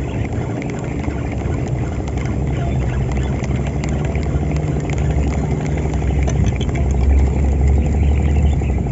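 An engine running steadily with a low drone, growing somewhat louder toward the end.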